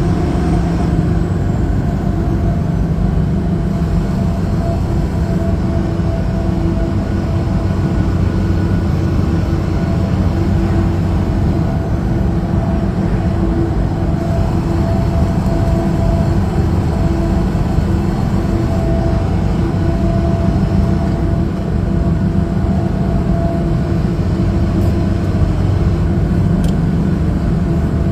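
Heavy truck running steadily at highway speed: a continuous low drone of engine and road noise with a few steady engine tones, holding level throughout.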